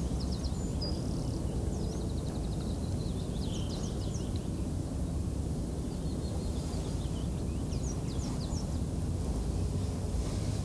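Steady outdoor background noise with a low rumble, and small birds chirping in short calls several times throughout.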